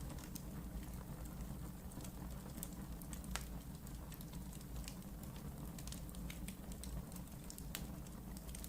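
Wood fire burning in a fireplace: a steady low rumble of flame with irregular sharp crackles and pops, several a second, two louder pops about a third of the way in and near the end.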